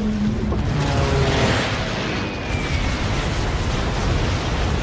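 Film battle sound mix: a dense, continuous din of explosions and battle noise, with music playing underneath.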